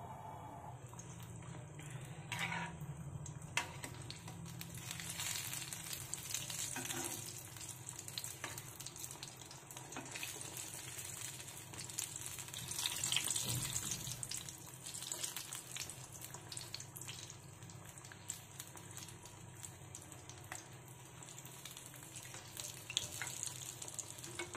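Besan-battered boiled eggs deep-frying in mustard oil in a pan: a steady crackling sizzle of the bubbling oil, with a few light clicks scattered through it.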